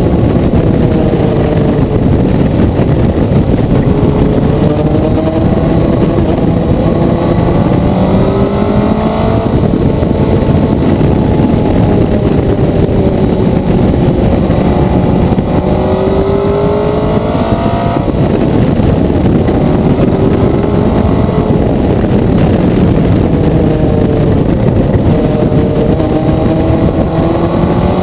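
Motorcycle engine on a ride, its note repeatedly dropping and then climbing under acceleration, three times in all, over a loud steady rush of noise.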